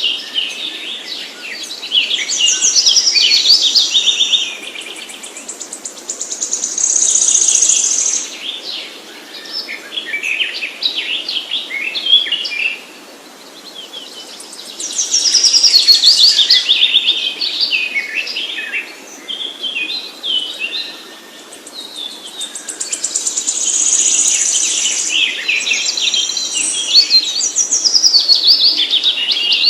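Songbird singing in repeated bursts of rapid, high chirps and trills, each lasting a few seconds, with short pauses between.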